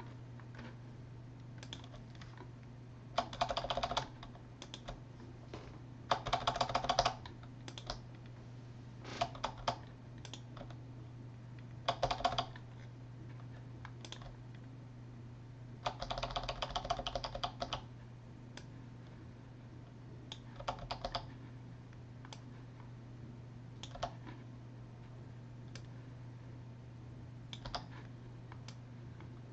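Typing on a computer keyboard in short bursts of rapid key clicks, with single keystrokes between them, over a steady low hum.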